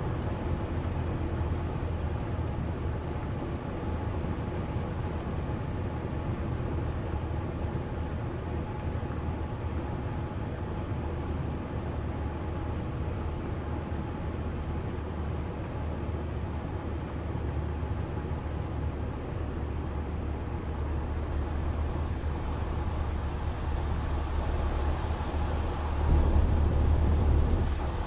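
Light airplane's engine droning steadily under a haze of airflow noise, with a louder low rumble coming in about two seconds before the end.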